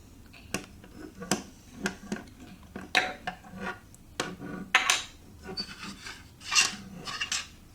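Plastic LEGO Duplo bricks clicking and clattering as a child handles them, in an irregular run of sharp knocks.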